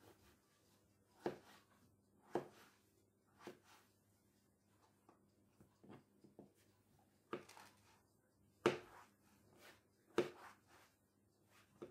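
Kitchen knife slicing a marinated cucumber on a wooden cutting board: about nine sharp knocks of the blade on the board at uneven intervals, the loudest a little past the middle.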